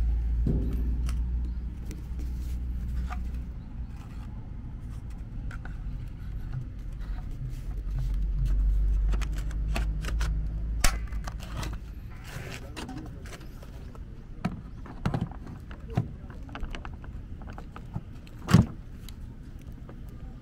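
CCS1 (DC Combo) charging plug and Tesla CCS1 adapter being handled, giving a series of sharp plastic clicks and knocks as they are fitted together and pushed into a Tesla's charge port, the loudest click near the end. A low rumble runs under the first half.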